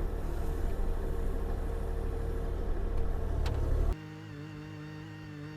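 Bobcat E42 mini excavator's diesel engine running steadily with a loud low rumble and one sharp click; about four seconds in the sound cuts off abruptly to a quieter, steady hum of held tones.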